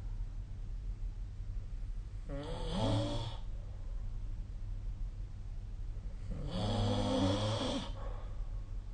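A sleeping person snoring: two snores about four seconds apart, the second longer than the first.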